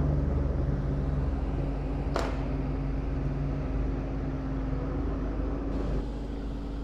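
Demolition machine's diesel engine running steadily, with a single sharp knock about two seconds in.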